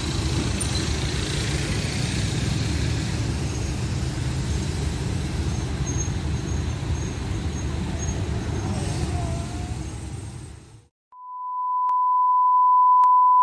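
Road traffic at a railway level crossing, a steady low rumble of car engines that fades out about eleven seconds in. Then a single steady test tone, the kind played with colour bars, swelling in loudness.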